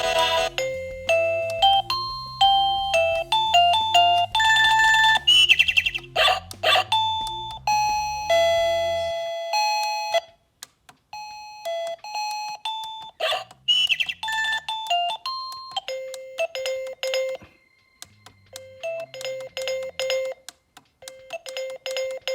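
SilkRd wireless doorbell receiver playing its electronic chime melodies, one short tune after another as its buttons cycle through the ringtones. The first tunes have a bass line under them; the later ones are shorter and break off with brief pauses, and near the end a two-note chime repeats.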